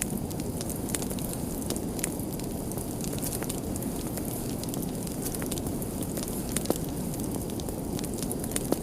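A fire burning with a steady low rush and scattered sharp crackles throughout, and two louder pops, one about two-thirds of the way through and one near the end.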